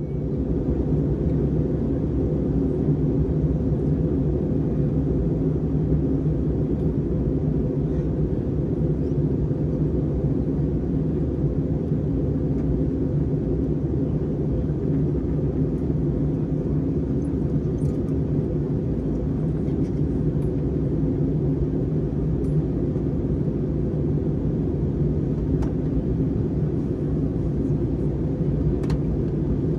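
Steady cabin noise inside an Airbus A321-231 in flight: a low, even rumble and hum from its IAE V2500 turbofan engines and the airflow over the fuselage. A few faint ticks are heard now and then.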